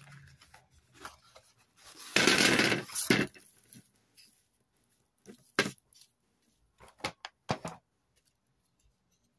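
A cardboard box of foil-wrapped tea cakes opened and emptied. About a second of loud rustling and scraping is followed by a knock. Then come a few short taps and crinkles as the cakes are set on a clear plastic plate.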